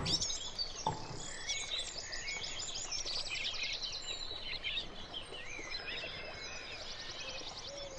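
Birdsong from a recorded soundscape: many birds chirping and twittering, with quick rattling trills about three seconds in and again near seven seconds.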